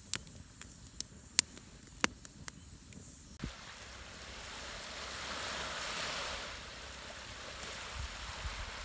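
Wood fire crackling in a metal fire pit, with scattered sharp pops, the loudest about a second and a half in. About three and a half seconds in it gives way to a steady hiss of wind and small waves on a sandy beach, swelling about six seconds in and then easing.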